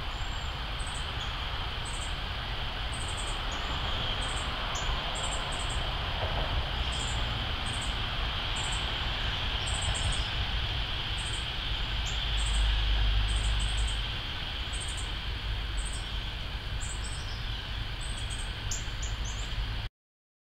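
Northern cardinals giving short, sharp chip notes, about one or two a second, over a steady hiss and a low rumble that swells briefly about two-thirds of the way through.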